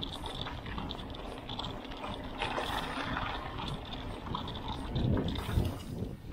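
Mountain bike rolling along a forest trail: tyre noise and wind rumbling on the camera's microphone, with a couple of louder bumps about five seconds in.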